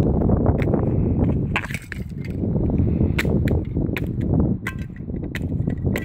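Pumps grinding small plastic toy farm pieces and clear toy greenhouse panes into dirt, with a string of sharp cracks and snaps, about a dozen, over a steady low rumble.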